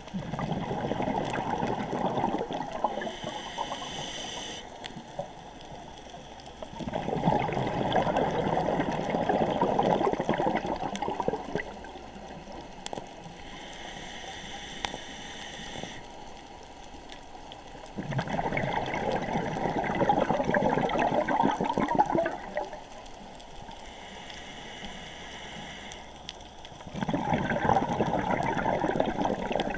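Scuba diver breathing through a regulator underwater. Each breath is a higher hiss on the inhale, followed a couple of seconds later by a long bubbling rush of exhaled air lasting about four seconds. The cycle repeats four times, about every eight to eleven seconds.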